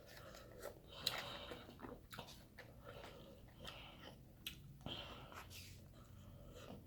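A person chewing food close to the microphone: faint, scattered mouth clicks and crackles.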